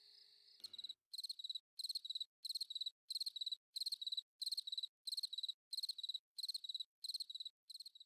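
Single cricket chirping close up in a steady rhythm, about three chirps every two seconds, each chirp a quick run of pulses. In the first moment, before it starts, a continuous high trill from a cricket chorus is heard as a last soft music note fades.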